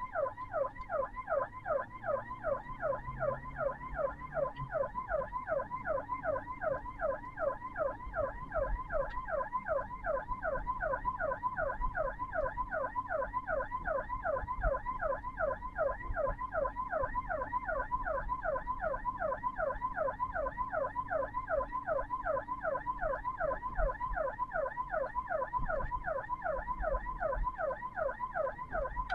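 Ambulance electronic siren on a rapid yelp, its tone sweeping several times a second without a break, with a low vehicle rumble underneath.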